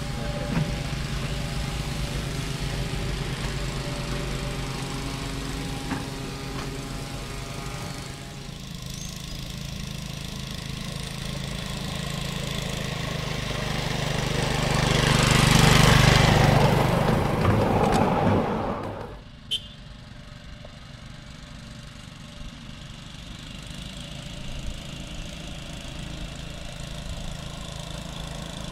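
A 7¼-inch gauge Scamp miniature locomotive running steadily along the track with its passenger cars. The drive hum and wheel noise swell loudest about halfway through as it passes close, then drop suddenly to a quieter, distant running sound.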